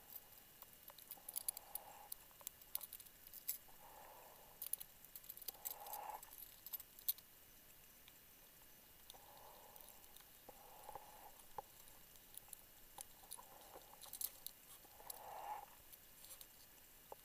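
Faint underwater sound on a deep rebreather dive: scattered sharp clicks and crackles, with soft muffled whooshes every couple of seconds.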